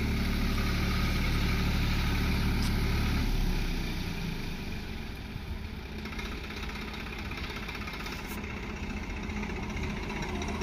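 Swaraj 744 FE 4WD tractor's three-cylinder diesel engine running steadily, then dropping to a quieter, lower run from about three and a half seconds in.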